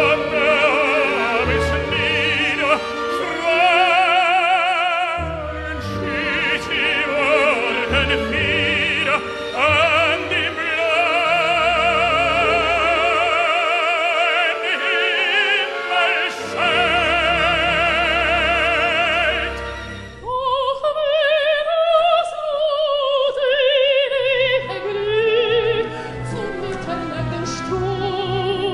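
Operatic tenor singing with full orchestra, holding long, ringing high notes with wide vibrato. About twenty seconds in, the sound cuts abruptly to a soprano singing over lighter orchestral accompaniment.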